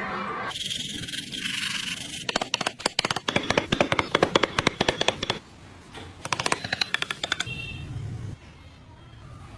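Tools working wood: bursts of rapid clicking and scraping, densest a few seconds in, then quieter.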